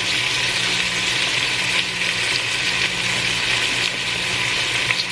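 Marinated chicken fillet pieces sizzling steadily in a hot pot as they sauté, with a few faint pops over a steady low hum.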